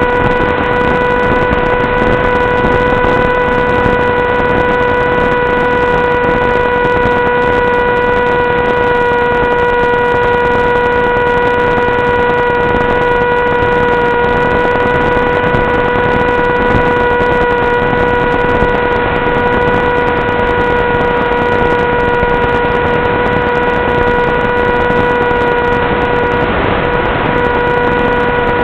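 Electric motor and propeller of an FPV wing running at a steady cruise throttle: a constant whine over hiss. It is heard through the analog video link's thin audio channel.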